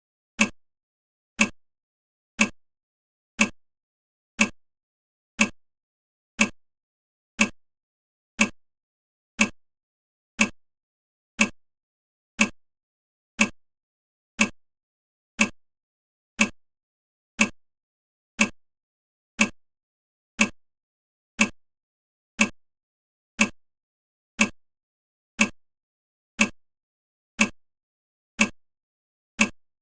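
Countdown timer ticking steadily, one sharp tick each second.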